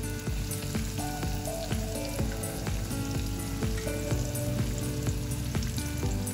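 Chicken pieces frying in hot oil with a steady sizzle, under background music with held notes.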